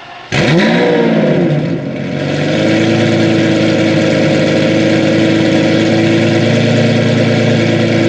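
Lamborghini Murciélago V12 firing up about a third of a second in with a quick flare of revs that rises and falls, then settling into a steady, loud idle through the exhaust.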